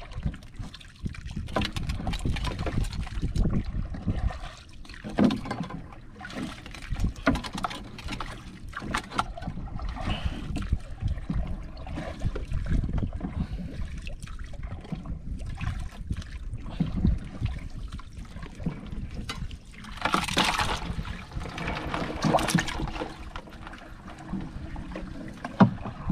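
Water dripping and splashing as a wet crab lift net is handled over a plastic basin of water, with scattered knocks and rustling of the net. A louder rush of noise comes about twenty seconds in.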